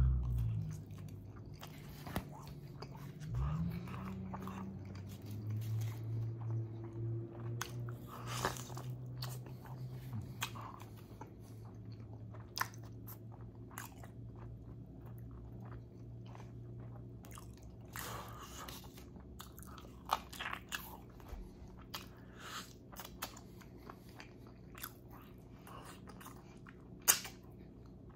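Close-up chewing and biting of pizza and chicken wings, with many short wet mouth clicks scattered throughout.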